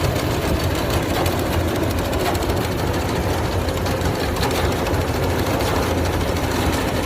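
Kubota DC105X combine harvester running while it harvests rice: a steady, low engine drone with no break.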